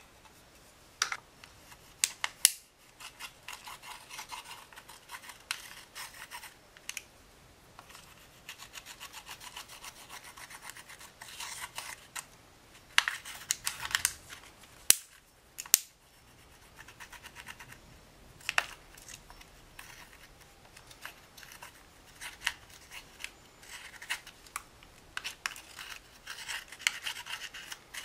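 Pressed eyeshadow scraped out of a plastic toy makeup palette with a small tool: runs of fast scratching strokes lasting a few seconds each, with a few sharp clicks, the loudest two about 15 seconds in.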